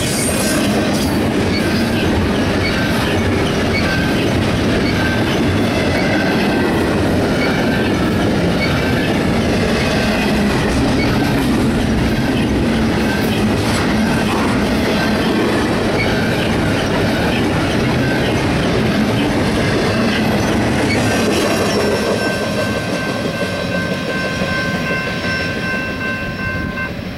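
Double-stack container well cars of a freight train rolling past at speed, with steady wheel and rail noise. About three-quarters of the way in, the noise fades as the end of the train goes by, leaving a few steady high tones that cut off near the end.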